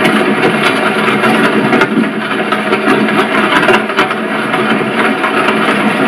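A horse-drawn carriage on the move: a steady, dense rattle and clatter with many irregular sharp knocks.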